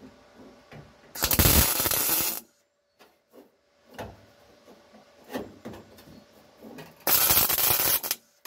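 MIG welder laying two tack welds on a steel car floor pan, each a loud burst about a second long, roughly six seconds apart, tacking the replacement panel in place. A few faint knocks come in between.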